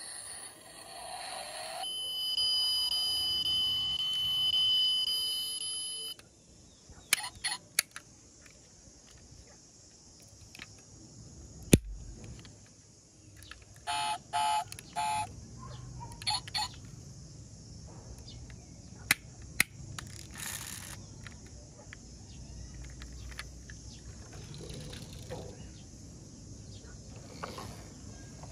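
A die-cast toy car's electronic sound chip gives a steady beeping tone for about four seconds. Then come scattered sharp clicks and short bursts as the car's small metal doors are opened and shut.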